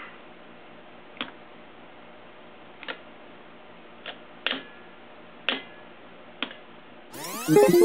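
Scissors clicking sharply among the stones in a rubber-lined rock-tumbler barrel, six short clicks spread unevenly. About seven seconds in, a much louder sweeping sound effect with a held musical tone starts; it is an editing transition laid over the audio.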